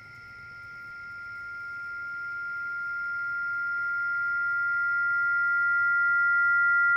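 A high-pitched electronic tone, two steady pure pitches held together, swelling louder and louder as a tension-building sound effect in a film's sound design.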